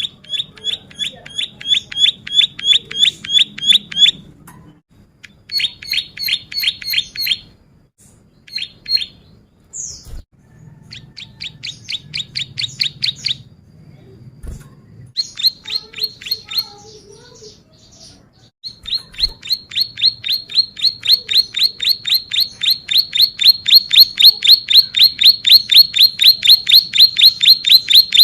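Ciblek sawah (a prinia) singing in rapid runs of sharp, repeated chirping notes, about five a second. The runs are broken by short pauses, and a long, louder unbroken run starts about two-thirds of the way in.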